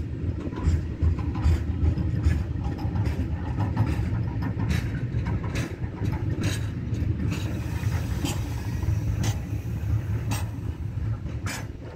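Freight train rumbling along or shunting: a steady low rumble with many irregular sharp clicks and knocks.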